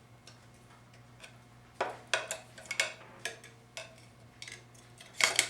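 Light, irregular metal clicks and taps of a small screwdriver working against a 4L60E transmission's input drum, starting about a second and a half in, with a louder cluster of clicks near the end.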